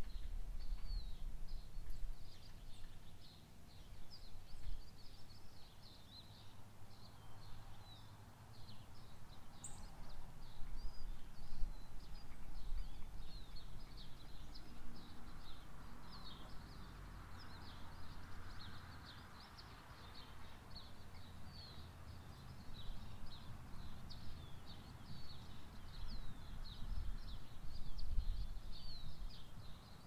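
Small songbirds chirping without a break, many short high calls overlapping, over a low rumble.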